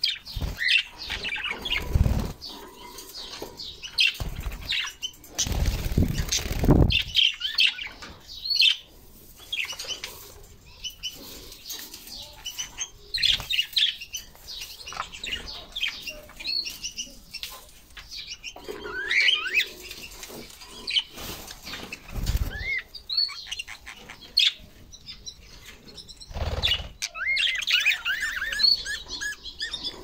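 Budgerigars chirping and chattering in many short calls throughout, with a few loud bursts of wing flapping, the longest around six seconds in and others near 22 and 26 seconds.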